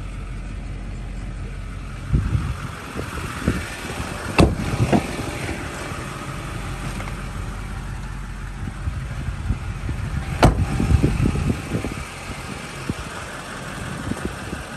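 2004 Chevrolet 2500HD's 6.6 L Duramax turbo-diesel V8 idling steadily, with rumbling handling noise and two sharp clicks, about four and ten seconds in.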